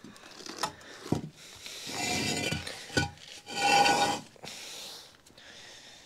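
Scraping and knocking as a Suzuki DR650 motorcycle is heaved up onto a stack of bricks: a few sharp knocks and two longer rough scrapes, about two and four seconds in, the second the louder.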